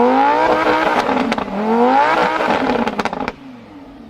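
Lamborghini Huracán LP610-4's V10 engine revved twice in quick blips, each rising in pitch and falling back with sharp exhaust crackles and pops on the overrun. The sound drops off suddenly a little over three seconds in.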